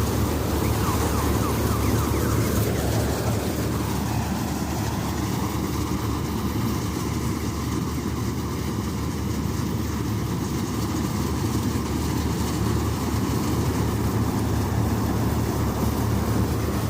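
Malkit 997 combine harvester running steadily under load while cutting paddy, a constant low engine hum with broad machinery noise over it. In the first few seconds a whine rises and falls.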